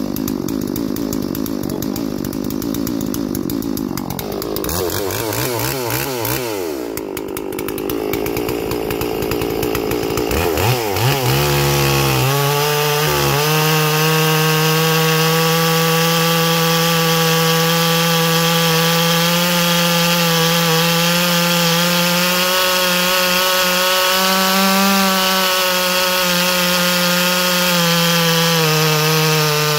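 G444 clone two-stroke chainsaw being revved with swings in pitch, then held at full throttle from about 11 seconds in. It then runs at a high, fairly steady pitch under load while the 36-inch full-chisel chain cuts through a big green hardwood log.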